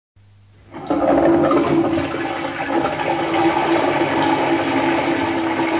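Audience applause in a theatre, coming up within the first second and holding steady.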